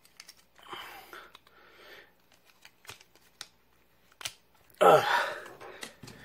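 Small plastic toy parts being handled and prised out of a plastic storage case: scattered sharp clicks and soft rustling, with a louder rushing noise about five seconds in.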